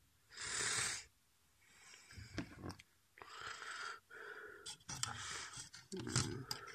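A person breathing out heavily close to the microphone, loudest about half a second in, followed by rustling and several sharp clicks as small plastic and metal parts and rubber bands are handled.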